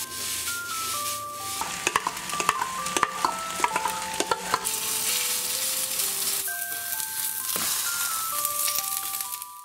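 Food sizzling in a hot frying pan, with quick clicks and scrapes of a utensil against the pan through the first half. A soft melody plays over it.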